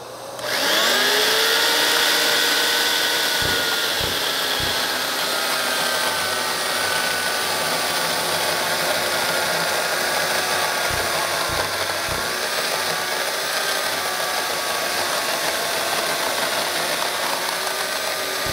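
A corded electric Skilsaw carpentry chainsaw spins up about half a second in, then cuts steadily through a thick laminated timber beam. Its motor pitch sags slightly under the load, and there are a few short low knocks along the way.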